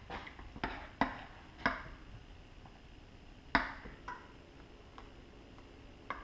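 A metal spoon stirring a thin batter in a ceramic bowl, clinking sharply against the side of the bowl about six times at irregular intervals.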